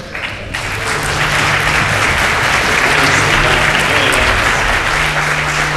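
Audience applause, swelling over the first second and then holding steady.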